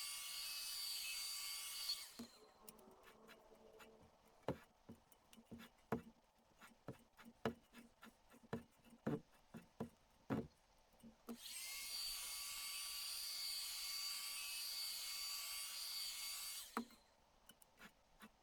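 Hot air gun blowing with a steady high hiss and whine, which cuts off after about two seconds. Irregular light taps follow as the heated decal ring is tapped down onto the wheel rim. The heat gun starts again about eleven seconds in and stops near the end, with a few more taps after it.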